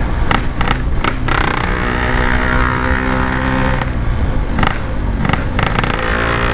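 Yamaha RX-King's single-cylinder two-stroke engine running at a steady, easy cruise through its stock-style exhaust, the pitch holding even, with a few brief interruptions about a second in and again near five seconds.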